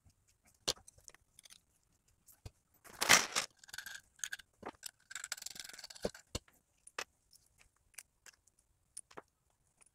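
Small steel nuts and threaded rod clicking and clinking as they are handled and set down on a stone worktop, with a louder short rattle about three seconds in.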